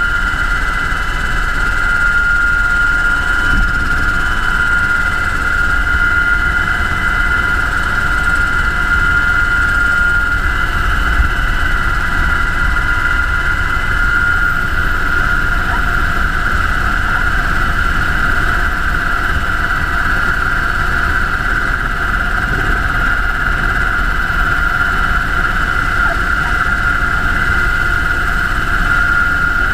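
UH-60 Black Hawk helicopter in flight: its twin turboshaft engines, rotors and transmission give a steady low rumble under a constant high-pitched whine.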